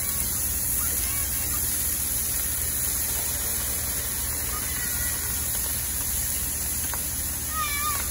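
Thin beef sizzler steaks sizzling steadily on a hot Lodge cast iron griddle over a propane grill's burners, with a low hum underneath.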